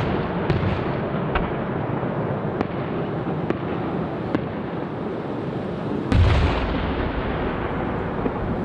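Fireworks shells bursting: a continuous rumble of explosions with scattered sharp cracks, and one loud boom about six seconds in.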